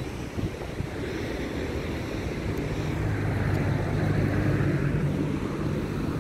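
A motor vehicle's engine running close by, growing louder about halfway through, over a steady outdoor rush of street noise.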